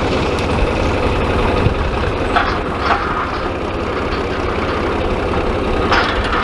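John Deere loader tractor's engine running steadily while its front-loader grapple is lowered over the trailer, with a few short clanks.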